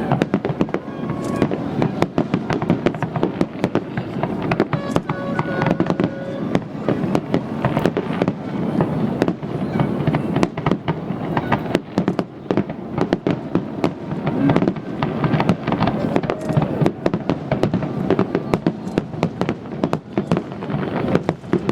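Fireworks going off in a dense, continuous barrage: rapid overlapping bangs and crackles with no let-up.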